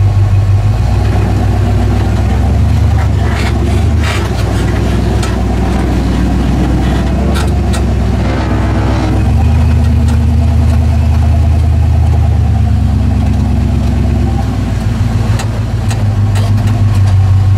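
Off-road rock-crawler engine running loud and steady under load, its note shifting with the throttle a few times as the vehicle climbs rock ledges, with a few clicks and knocks.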